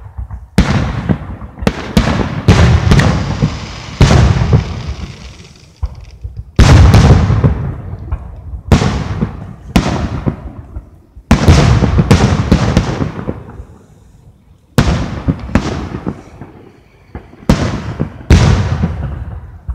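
Aerial firework shells bursting in a string of loud booms, a dozen or more, some in quick clusters and some a second or two apart, each dying away in a long rumbling echo.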